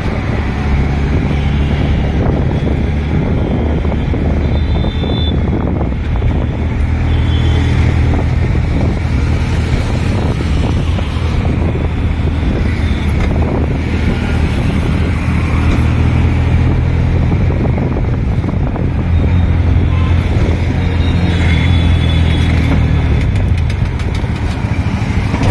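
Road traffic heard while riding along on a two-wheeler: a steady low engine hum that drifts a little in pitch, with continuous wind and tyre noise.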